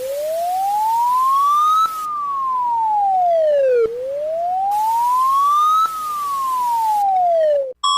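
Siren on a slow wail, its pitch rising for about two seconds and falling for two, twice through, then cutting off abruptly. A short electronic beep starts at the very end.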